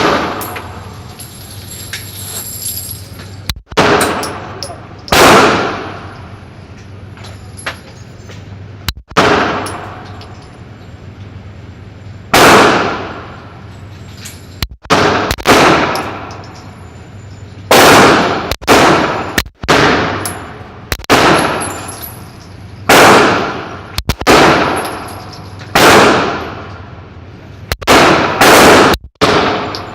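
Pistol shots fired at an uneven pace, about eighteen in all, some single and some in quick pairs, each followed by a long echoing decay.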